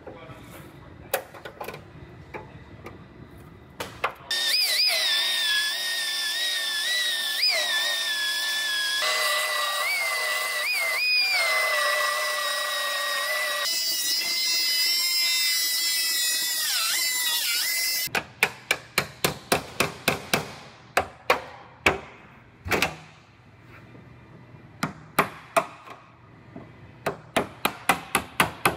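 A cut-off wheel tool whining at high speed as it cuts through the steel quarter panel, its pitch dipping and recovering as the cut loads it. Before it there are a few sharp clicks. After it come runs of quick hammer blows on a chisel against the panel seams, about three a second.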